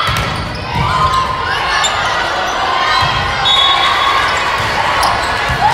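Volleyball play in an echoing gym: several thuds of the ball and players on the court, with squeaking sneakers and shouted calls.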